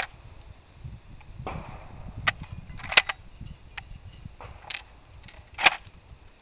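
Semi-automatic shotgun being reloaded: several sharp metallic clicks, irregularly spaced a second or more apart, as shells are pushed into the magazine and the action is worked.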